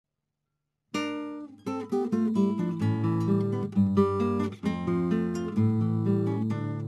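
Acoustic guitar music, plucked and strummed, starting about a second in after a brief silence.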